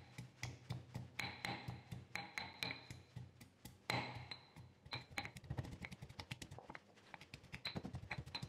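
Stone pestle pounding garlic, ginger and lemongrass in a stone mortar: a run of short knocks a few times a second, coming quicker in the last couple of seconds.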